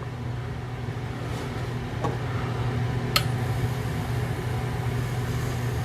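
Small electric motor of a graver-sharpening wheel running with a steady hum, growing slightly louder, with a single sharp tick about three seconds in.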